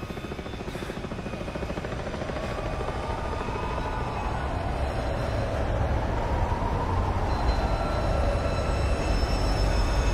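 Low rumble with a rapid flutter, growing steadily louder, with a faint wavering whine above it.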